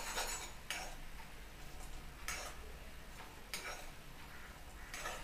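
A metal spoon scraping and tapping against a small kadai while thickening jaggery syrup is stirred, four faint strokes about a second and a half apart.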